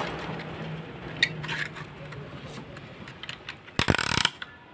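Ratchet-type piston ring compressor being tightened around a piston's rings with its ratchet key: scattered pawl clicks, then a quick run of ratcheting clicks near the end.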